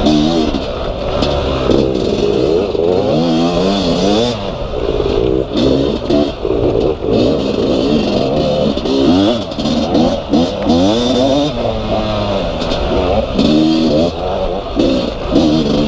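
Yamaha YZ250 two-stroke dirt bike engine being ridden hard on a trail: the revs climb and drop back over and over as the rider works the throttle and shifts.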